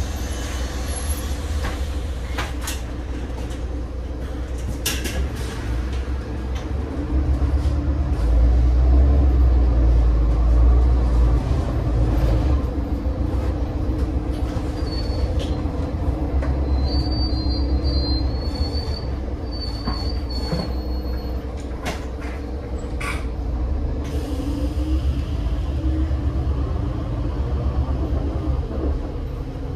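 Heuliez GX 137 city bus with an Iveco Tector 7 diesel engine, running as the bus drives. Its deep rumble swells about seven seconds in and eases after about twelve. Scattered rattles and clicks are heard, with a faint high squeal around the middle.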